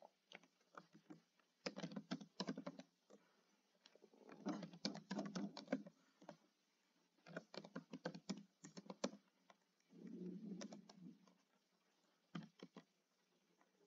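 Faint typing on a computer keyboard, in four short bursts of key clicks with pauses between them. A short low sound comes about ten seconds in.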